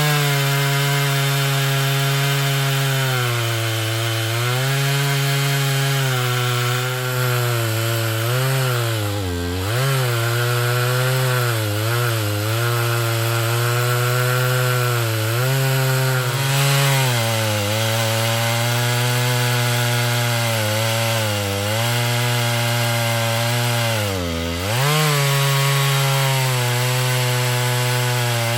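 Chainsaw in an Alaskan chainsaw mill, running at high revs as it rips a poplar log lengthwise into thin boards. Its pitch sags briefly every few seconds as the cut loads the engine.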